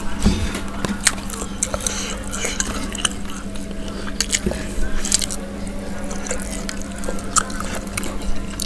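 Close-miked sounds of someone eating fried chicken and rice: wet chewing and mouth smacks with irregular sharp clicks, over a steady low hum.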